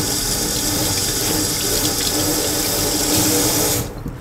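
Kitchen tap running steadily, the stream pouring over a bamboo matcha whisk and splashing into a stainless steel sink as the whisk is rinsed. The tap is shut off near the end and the rush of water stops abruptly.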